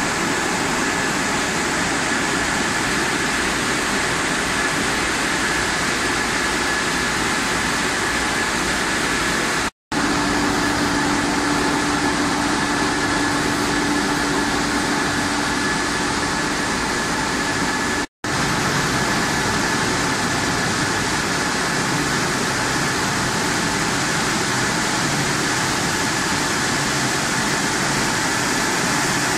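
French fries production line machinery running: a steady din of conveyor motors and fans with a constant high whine, and a lower hum joining for several seconds in the middle. The sound drops out completely for a moment twice.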